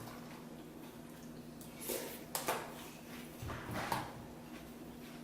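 A few brief clinks and crunches of spoons in bowls of crunchy cereal being eaten, about two seconds in and again near four seconds, over a faint steady hum.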